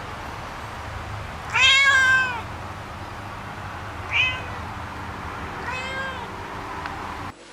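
A domestic cat meowing three times: a long, loud meow about one and a half seconds in, a short one a little after four seconds, and a softer one around six seconds, over a steady low hum.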